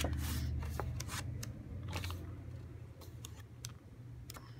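Pages of a scrapbook paper pad being leafed through by hand: a run of short paper rustles and flips, over a low steady hum.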